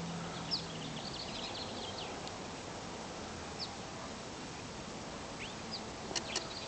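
Faint outdoor background hiss with scattered short, high bird chirps that fall in pitch. A low steady hum is heard in the first second, and a few sharp ticks come near the end.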